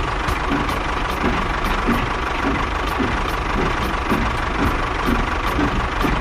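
A small motor in a home-built miniature machine running steadily with a thin whine and a regular ticking about three times a second.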